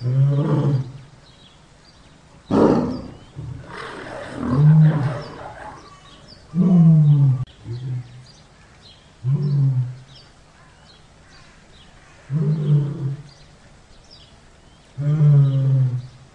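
Tiger roaring and growling in repeated short, deep bursts of about a second each, one every two to three seconds.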